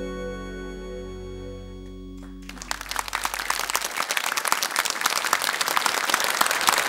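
A band's last held chord on keyboards fades out, and about two and a half seconds in a studio audience breaks into applause that grows louder.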